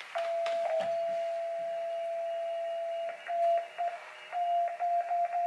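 Single steady beep from a homebuilt Pixie 40 m QRP CW transceiver kit, held for about three seconds and then keyed on and off in short Morse dits and dahs. The keying sounds backwards to the operator, the tone seemingly reversed against the key.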